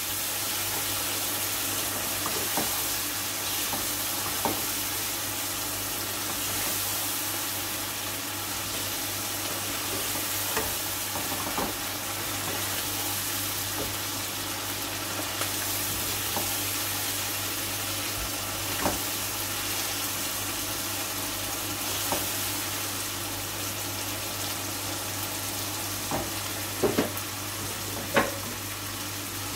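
Chicken, potato and green pepper curry sizzling steadily in a non-stick wok as a spatula stirs it, with scattered short scrapes and taps of the spatula on the pan, a few louder ones near the end. It is frying in its own oil, which has separated from the masala, the sign that the curry is done. A steady low hum runs underneath.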